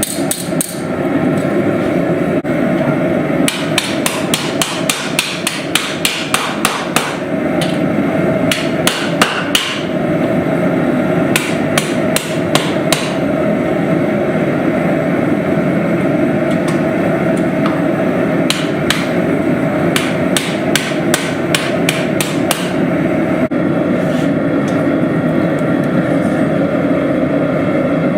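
Hand hammer striking a steel cross blank on an anvil in quick runs of blows, about four a second, with pauses between runs, over a steady rushing noise.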